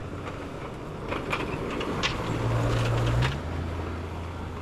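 Jeep Cherokee fitted with a snowplow being driven: a steady low engine hum with road noise, growing louder for a couple of seconds through the middle, then easing off.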